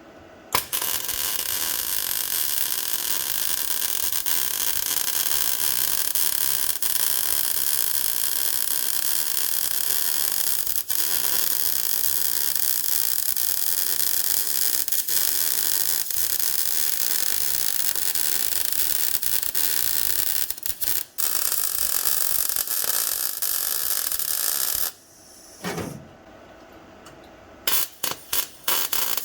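Angle grinder with a cut-off disc cutting through an old steel seat mount, a steady high-pitched hiss of disc on metal. It runs for most of the time, dips briefly twice, stops, then comes back in a few short bursts near the end.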